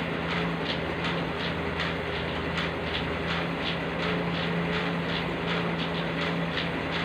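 Elliptical cross trainer in use: a steady hum with a regular clicking, about three clicks a second, from the machine's moving parts.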